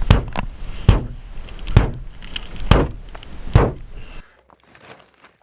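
Tactical pen's pointed tip being struck hard into a car door's sheet metal, five blows about a second apart, each a sharp hit with a short ring, leaving puncture marks. The sound cuts off suddenly about four seconds in.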